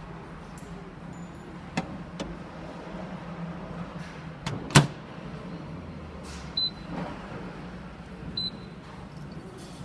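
Hoshizaki HMN-18B commercial microwave oven being handled: a few clicks and one sharp clack a little before halfway, then two short high beeps about two seconds apart, over a steady low hum.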